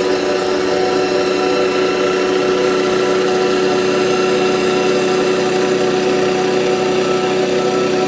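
Mini rice combine harvester's engine running steadily as the machine cuts standing rice.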